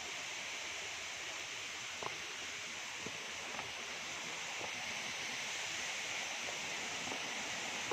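Steady rushing of flowing river water, an even hiss, with a few faint clicks.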